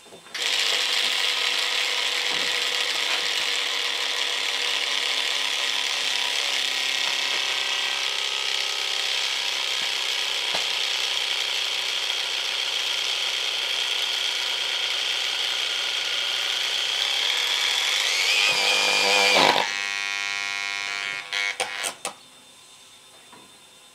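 XU1 angle grinder running with no load until it burns out: its brushes are disintegrated and its bearings tight. The motor runs steadily, rises in pitch about 18 seconds in, then drops to a lower, rougher running, stutters and stops a couple of seconds later.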